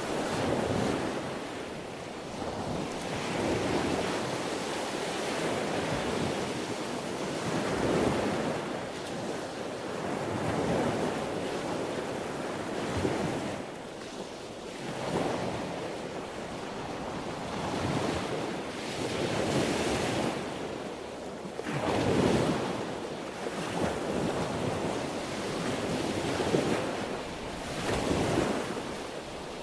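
Sea waves surging and breaking, a continuous wash of surf that swells and falls back every two to three seconds.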